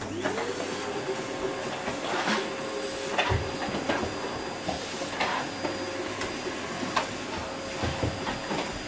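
Canister vacuum cleaner switched on, its motor spinning up to a steady whine in the first half second, then running steadily while the floor nozzle is worked over a rug, with a few scattered knocks.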